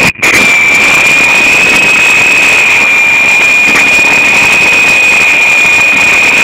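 Small electric RC helicopter's motor and rotor running steadily, a loud, high, unwavering whine right at the microphone. The sound drops out for an instant near the start.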